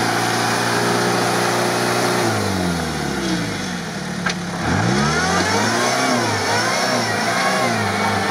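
Engine of a modified UAZ off-roader driving through deep mud. It runs steadily at first, then the revs fall for about two seconds under load. A single sharp click comes about four seconds in, then the revs rise and fall again and again.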